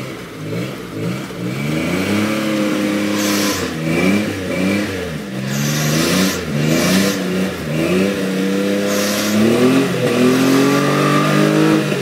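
Lifted Toyota pickup's engine revving up and down over and over as the truck crawls up a rock ledge on off-road tyres, with a few short bursts of hiss.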